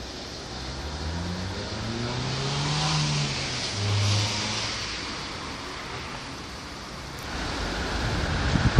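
A motor rising in pitch as it speeds up, loudest about three to four seconds in, then fading away. Near the end, the even rumble of an approaching train led by a class 189 electric locomotive suddenly comes in.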